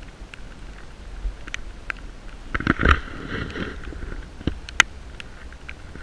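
Raindrops tapping irregularly on the camera, with a louder rubbing, knocking disturbance about halfway through and one sharp click near the end.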